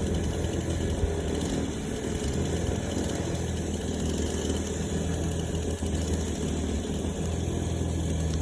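An engine idling steadily with an even, low hum.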